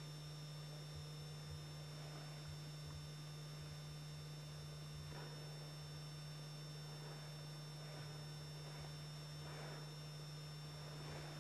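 Steady low electrical hum with background hiss, and a few faint soft swishes; no animal sound stands out.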